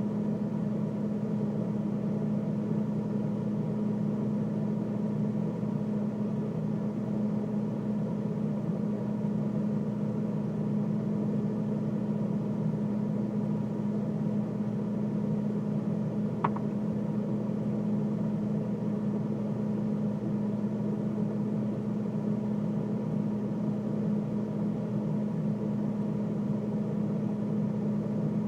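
Freezer running: a steady low mechanical hum, with a single short click a little past the middle.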